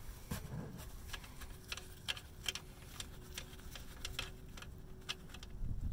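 Light, sharp clicks, about two or three a second, as the 17 mm oil drain plug is worked loose from the oil pan.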